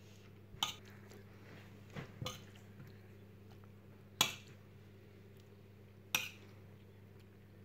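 A few scattered clinks and knocks of kitchen utensils against dishes, about five in all, the sharpest about four and six seconds in, over a faint steady low hum.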